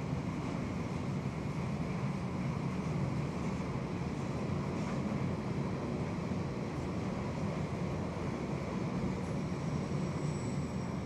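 Freight train of loaded two-deck car-carrier wagons rolling past, a steady rumble of wheels on rail. A faint high squeal comes in near the end.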